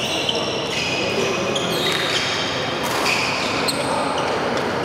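Badminton shoes squeaking repeatedly on a synthetic court mat as players lunge and turn in a doubles rally, with a few sharp racket strikes on the shuttlecock.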